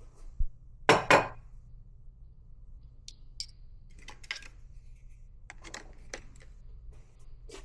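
Coffee gear and dishes being handled on a hard surface: a loud clatter about a second in, then scattered light clinks and knocks.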